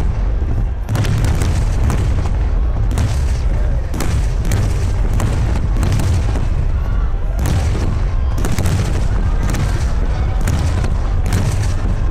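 Water-launched starmine fireworks barrage: an unbroken run of deep booms from shells bursting over the lake, with sharp cracking reports going off about once or twice a second on top.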